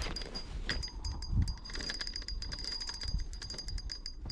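Spinning reel ticking rapidly and irregularly while a large sturgeon is played on a bent rod, over a low rumble.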